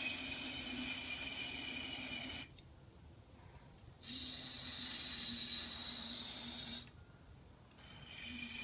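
Aerosol can of non-chlorinated brake parts cleaner spraying through its thin extension straw into a plastic power steering fluid reservoir, flushing it out. Hissing sprays of two to three seconds each: one that stops about two seconds in, a second from about four to nearly seven seconds, and a third starting near the end.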